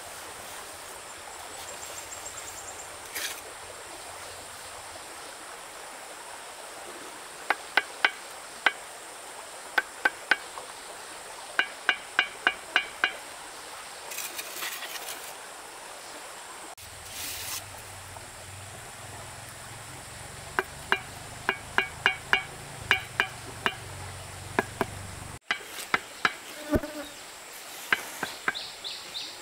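Bursts of sharp knocking strikes, about two to three a second and several in a row, each with a short ring, like hammering. Under them runs a steady high insect drone.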